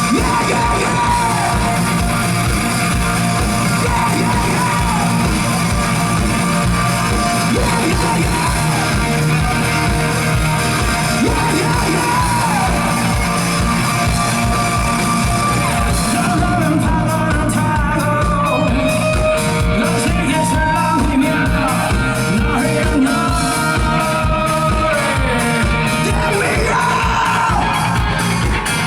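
Live rock band playing loud at a club gig, with a male lead singer singing and yelling over drums and guitars. About halfway through, the cymbal wash thins out and the drumming turns choppier.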